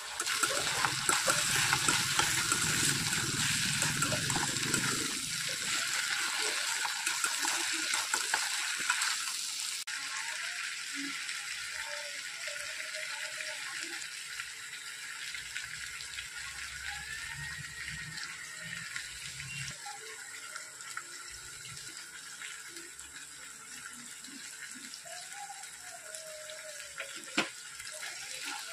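Brinjal, drumstick, onion and tomato frying in oil in a stainless steel kadai, a steady sizzling hiss that is louder for the first ten seconds and quieter after.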